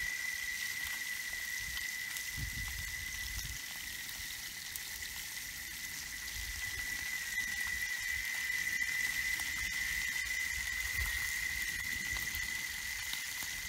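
Fish frying in oil in a pan over a wood fire: a steady sizzle. A thin, steady high-pitched tone runs alongside it throughout.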